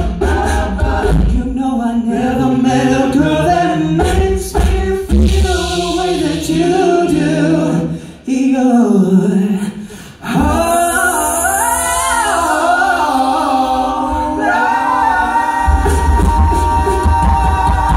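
Five men singing a cappella through microphones, close harmony over a deep sung bass line. About eight seconds in the voices briefly break off, then come back on a long held chord while a high voice slides upward over it, the bass joining again near the end.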